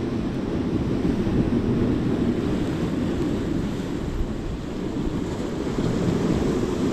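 Rough sea surf breaking on the shore with wind buffeting the microphone: a steady noise, heaviest in the low end.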